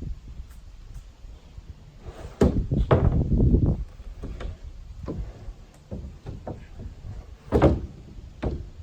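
Several heavy thuds and knocks over a low rumble: a loud cluster about two and a half seconds in, lasting about a second, and another sharp one near the end.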